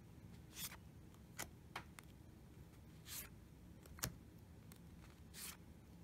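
Quiet handling of a deck of oracle cards: soft swishes of cards being slid off the deck one at a time, with a few small taps and clicks between them, the sharpest about four seconds in.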